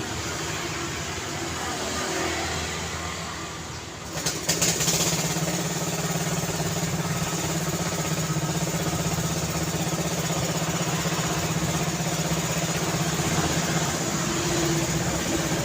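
Road traffic ambience; about four seconds in, a nearby vehicle engine comes in sharply and then runs steadily.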